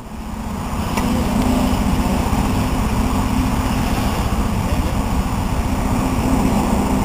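Steady low rumble with an even hum, like road traffic.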